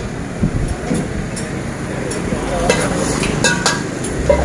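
Metal ladle knocking and scraping against a wok as chicken rice is stir-fried over a gas burner, with a steady sizzle underneath. There are several sharp clanks, two in quick succession about three and a half seconds in.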